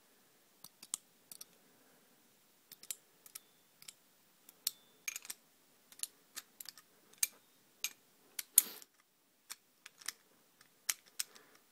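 Irregular metallic clicks and small clatters of sockets being pushed on and off the square drive of a 3/8 in. ratchet and worked with its quick-release button, with one louder short rattle about two-thirds of the way through.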